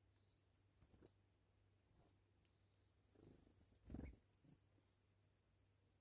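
Small songbirds calling faintly: thin, high chirps that slide downward, a short run near the start and a quicker string of them from about three and a half seconds in. A soft low thump about four seconds in.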